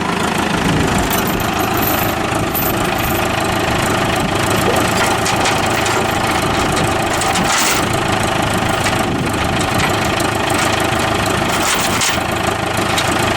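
Farm tractor engine idling steadily, with a few faint clicks near the middle and near the end.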